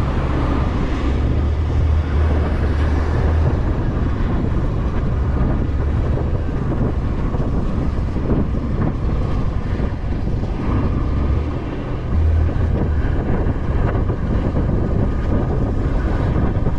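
Motor scooter being ridden through city traffic: the engine runs under steady wind noise on the head-mounted camera's microphone, with the low rumble swelling near the start and again about twelve seconds in.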